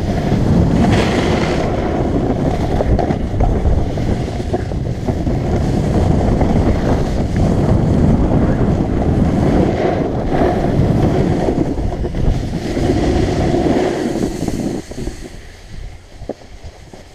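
Heavy wind buffeting the microphone of a skier's action camera while skiing downhill at speed, a steady low rushing noise. It fades off about fifteen seconds in as the skier slows.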